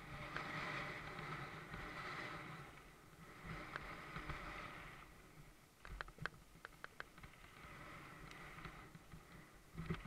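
Mountain bike rolling fast down a dirt trail: tyres on dirt and loose stones make a rushing noise that swells and eases, with a run of sharp clicks and rattles from the bike over bumps about six to seven seconds in.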